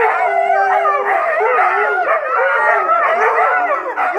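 Huskies howling together, several long wavering howls overlapping and gliding up and down in pitch, the 'singing' or 'talking' of huskies.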